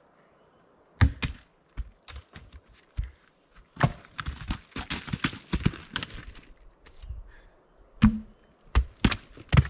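Cut ponderosa pine log rounds thrown down a hillside, tumbling and landing among other logs in an irregular run of heavy wooden thuds and knocks. The loudest thuds come about a second in and near the end.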